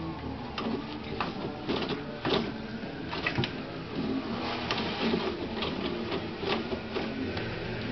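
Toilet paper roll spinning and rattling on its wall holder as a cat paws at it, with irregular clicks and paper rustling over a steady low hum.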